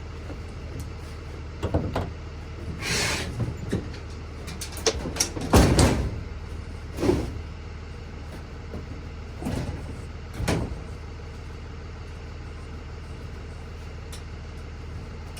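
A series of metallic clunks and knocks from work on an old pickup truck, with a scrape about three seconds in and the loudest clunk about six seconds in, over a steady low hum.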